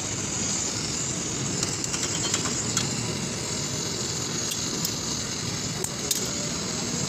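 Steady background noise with a few light clinks and ticks scattered through it.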